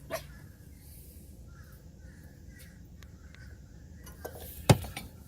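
A few sharp metal clicks and clinks, one much louder than the rest near the end, from a steel tube nut being handled against the flared end of an EGR pipe. Several short, faint bird calls sound in the background.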